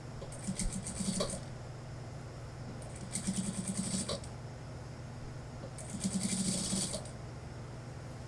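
Industrial lockstitch sewing machine stitching through suit-trouser wool and pocketing in three short runs of about a second each, with pauses between for repositioning the fabric, over a steady low hum.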